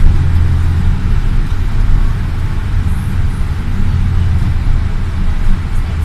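Steady, loud low rumble of a running vehicle.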